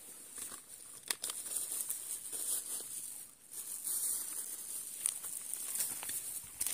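Footsteps crunching on dry leaves and gravel, with irregular crackles and a few sharper clicks.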